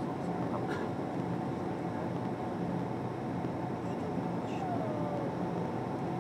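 Cabin noise of a Boeing 767-400 climbing after take-off, heard beside the engine: its turbofans running steadily at climb power under a constant airflow hiss and a steady hum. A short falling whine sounds about five seconds in.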